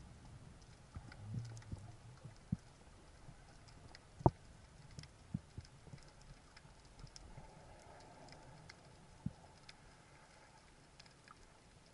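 Faint underwater ambience with scattered sharp clicks and knocks, one louder knock about four seconds in.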